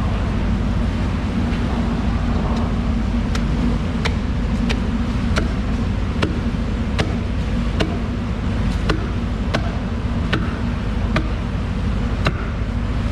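A large knife being honed on a sharpening steel: about a dozen short metallic strokes, roughly one every three-quarters of a second, starting about two and a half seconds in. Under them runs a steady low rumble like engine or traffic noise.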